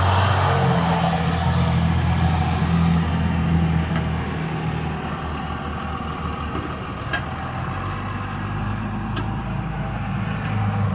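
A vehicle engine running steadily with a low hum, with a few faint ticks.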